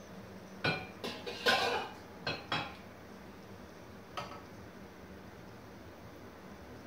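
Small metal ladle clinking and scraping against a steel pot while hot beet brine is scooped out. There are five quick knocks in the first three seconds, the middle one longer with a scrape, then one more clink about four seconds in as the ladle reaches the glass jar.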